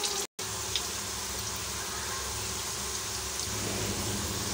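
Potato strips frying in hot oil in a pan: a steady sizzling hiss with faint crackles. The sound cuts out for a moment just after the start.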